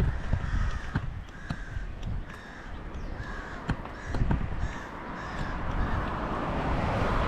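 Crows cawing in a steady series, about one or two short caws a second, over a low rumble, with a rising hiss swelling near the end.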